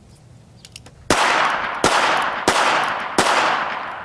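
Four .22 shots from a North American Arms mini revolver, the first about a second in and the rest about two-thirds of a second apart. Each sharp crack is followed by a long echo that dies away.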